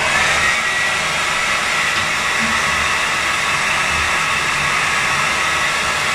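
Handheld hair dryer switching on and then blowing steadily: a loud, even rush of air with a thin high whine held over it.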